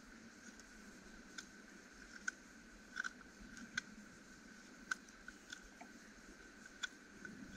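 Knife carving a small branch-wood blank: quiet, short, sharp cutting snicks at an irregular pace, about one or two a second.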